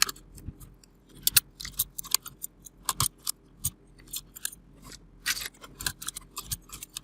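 Double-shot PBT keycaps being pulled off an Akko 3108 mechanical keyboard with a keycap puller: irregular sharp plastic clicks, a few a second.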